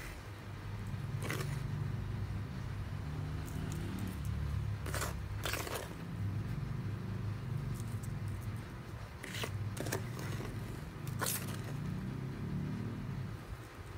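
Red plastic scoop digging and stirring through a gritty potting mix of leaf-mould soil and small pumice grit in a plastic bowl: a steady crunching rustle, with about half a dozen sharper scrapes of the scoop.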